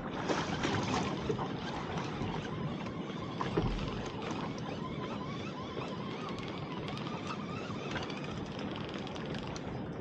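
Sea water washing around a small open fishing boat, with wind on the microphone, as a steady rush. A single knock about three and a half seconds in, and faint ticking in the last few seconds.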